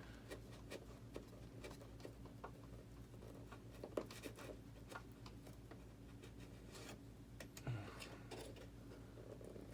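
Faint scratching and scattered small clicks of a blade cutting into the model jet, with light handling, over a steady low hum.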